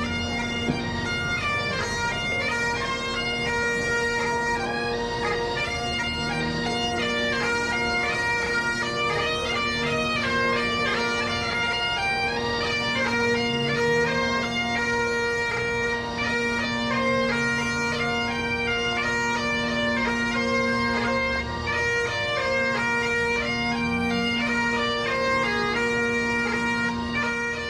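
Highland bagpipes playing a tune: a steady drone under a moving chanter melody.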